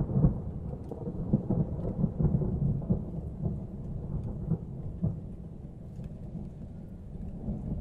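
A low, uneven rumble, strongest in the deep bass, with a few faint crackles on top.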